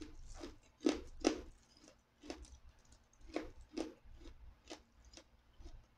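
Close-miked chewing and mouth smacking while eating by hand: a string of short, irregular wet smacks and clicks, the loudest two about a second in.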